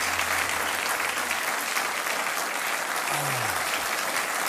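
Studio audience applauding steadily; a low held note underneath stops about a second and a half in.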